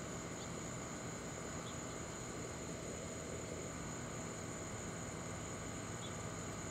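Steady high-pitched chorus of insects, with a few short faint chirps over it.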